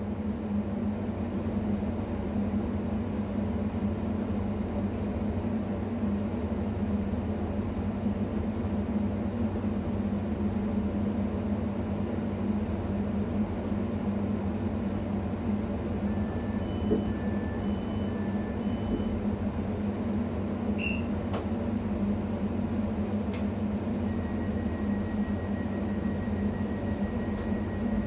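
Steady hum of a ČD class 640 RegioPanter electric multiple unit standing still with its onboard systems running. Just past halfway come three short two-note electronic beeps, then a chirp and a couple of clicks, and near the end one long steady beep.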